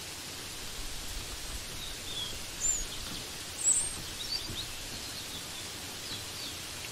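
Steady hiss of rain with a handful of short, high bird chirps over it, the loudest about halfway through.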